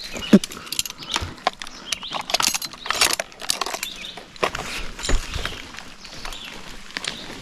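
Irregular clinking, rattling and scraping of an arborist's metal climbing and rigging hardware (rings, carabiners) and rope as he works in the tree. These are short sharp clicks scattered unevenly throughout.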